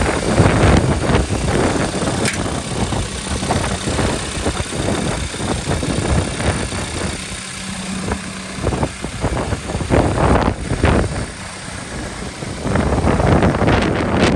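Case 851FX backhoe loader's diesel engine running, mixed with uneven, gusty noise such as wind buffeting the microphone.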